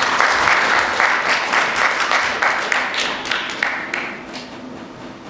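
Theatre audience applauding; the clapping thins out and dies away after about four seconds.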